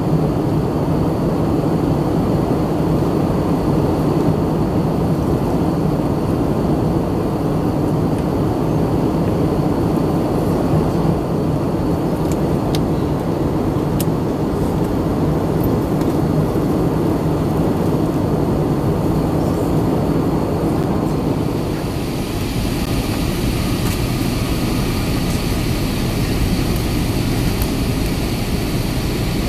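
Steady cabin noise of an Airbus A320neo in flight, heard from a window seat: the drone of its CFM LEAP-1A turbofans mixed with airflow rushing over the fuselage. About two-thirds of the way through, the noise turns hissier and brighter, with a faint high steady tone.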